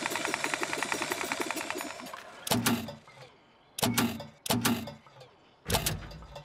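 Cartoon sound effects for the Sandman's little flying vehicle: a rapid, even mechanical rattle of its motor as it sets down, fading out about two seconds in. Then come four loud mechanical clunks over the next few seconds as a button on its dashboard is pressed.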